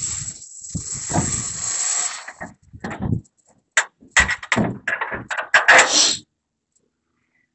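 Metal scraping, then irregular clanks and knocks as a metal pipe is handled against the sheet-metal grain bin of a rice combine harvester. The sound cuts off suddenly about six seconds in.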